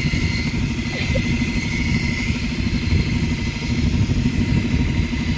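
Fishing boat's engine idling, a steady low rumble, with a faint, steady high whine over it.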